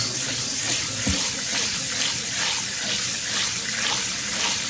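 Kitchen sink pull-out sprayer running steadily into a stainless steel bowl of water and rice, the spray splashing into it as sushi rice is rinsed of its starch.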